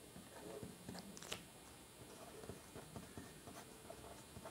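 Faint scratching of a red pen writing on paper, with irregular small strokes and ticks and one sharper tap about a second in.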